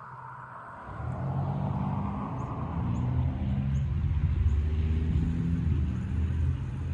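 Low, steady rumble of a motor vehicle's engine that swells up about a second in and holds.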